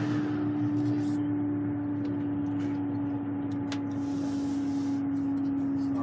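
Bus running at highway speed, heard from inside: a steady engine and drivetrain hum that sinks slightly in pitch, over road noise.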